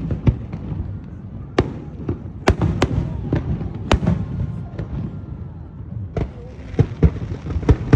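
Aerial fireworks display: about a dozen sharp bangs at irregular intervals over a continuous low rumble of distant bursts.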